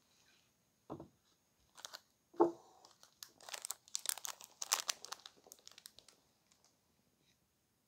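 A carton thuds down on a table twice, the second knock the loudest, then a plastic snack wrapper on a pack of Gosomi crackers crinkles and rustles for about three seconds as it is handled.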